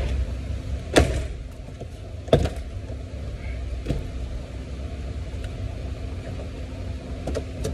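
Plastic retaining clips of a 2022 Honda Pilot's door trim panel popping loose as the panel is pulled off the door: two sharp snaps about a second and a half apart, then a fainter one about four seconds in. A steady low hum runs underneath.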